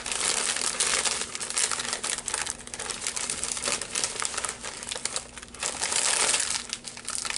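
Crisp packet crinkling continuously as it is handled, dipping briefly a couple of times near the end.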